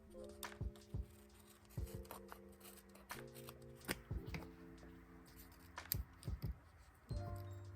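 Small sharp clicks and rustles of paper and stickers being handled, several of them over the few seconds, over soft background music of held chords.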